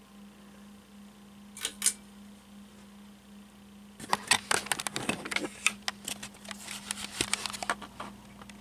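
Encon Corinthian hugger ceiling fan running on low with a steady motor hum. Two sharp clicks come about two seconds in, then a rapid run of clicks and taps for about four seconds starting halfway through, louder than the fan.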